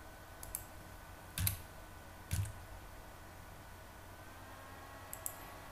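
Computer keyboard and mouse clicks: a few light clicks, two louder keystrokes about a second apart, over a faint steady hum.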